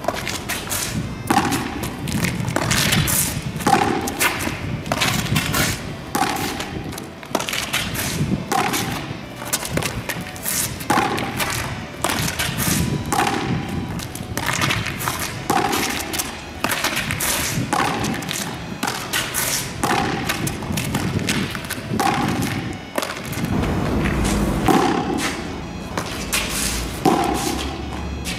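Background music with a steady beat, over repeated thuds of a rubber practice baseball hitting a wall and bouncing on the pavement as it is fielded.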